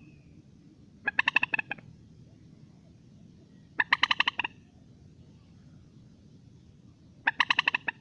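Common moorhen calling: three short bursts of rapidly repeated notes, each under a second long, a few seconds apart.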